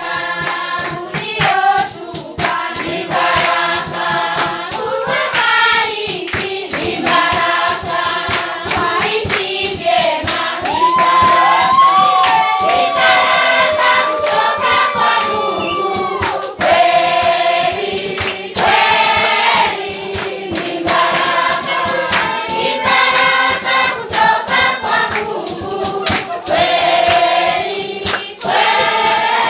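A Kenyan group singing together in chorus, over a running beat of sharp percussive strokes. From about ten seconds in, a higher line slides up and down in pitch over the voices for several seconds.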